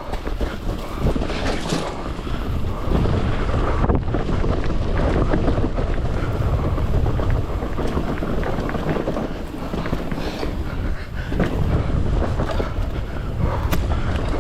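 Wind buffeting the microphone of a mountain bike on a downhill trail run, over a low rumble of tyres on dirt and a constant rattle of short clicks from the bike.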